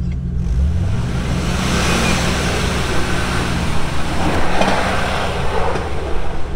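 2004 Jeep Grand Cherokee's engine revving under load as it climbs a steep muddy hill, the revs rising about half a second in. A loud rushing noise of tyres churning the dirt runs through the middle of the climb.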